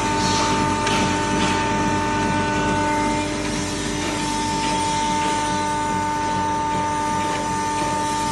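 Cotton fibre grinder machine running steadily: an even mechanical noise carrying a constant whining tone.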